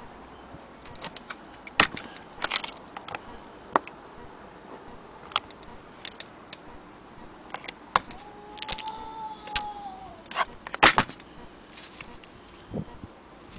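Irregular metallic clicks and light knocks as a brass longcase clock movement is handled. A short tone rises and falls about two thirds of the way through.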